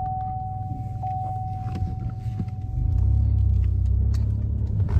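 Inside a car: a steady single-tone warning chime rings, then fades about three seconds in as a low engine rumble swells up and stays loud, with a few light clicks.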